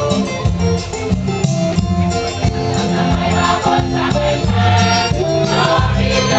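Gospel music: voices singing over a bass line, with percussion keeping a steady beat.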